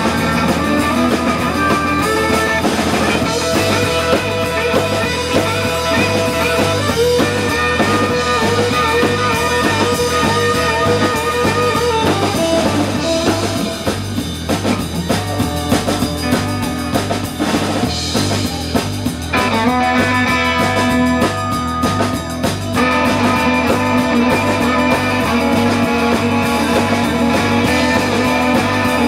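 Live blues-rock band playing an instrumental passage: electric guitar with held, bending notes over a drum kit and bass.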